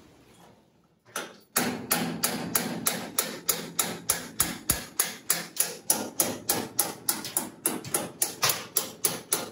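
A hammer tapping a hand chisel along a sheet-metal body panel to cut a bead line: one tap about a second in, then a steady run of quick, evenly spaced blows, about three to four a second, struck close together so the line comes out continuous.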